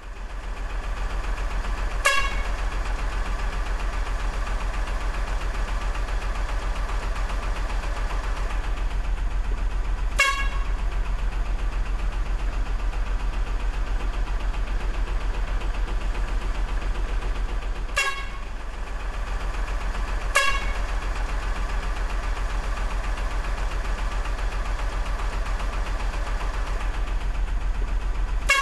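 A truck engine running steadily with an even low rumble, broken by five short horn honks spread through, two of them close together about two-thirds of the way in.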